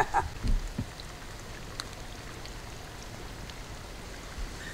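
Steady, quiet outdoor background hiss with a few soft low knocks in the first second and faint scattered ticks.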